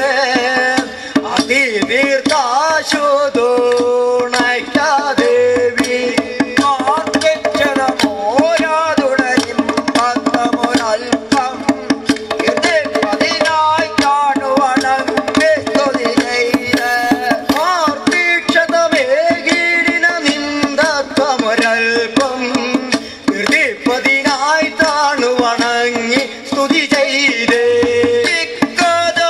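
Padayani performance music: men singing a devotional Padayani song over fast, continuous hand-drum beating.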